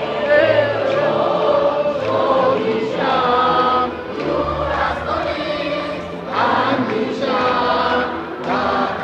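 A large crowd of fans singing a song together in an indoor arena, many voices in unison; near the end a man sings close to the microphone.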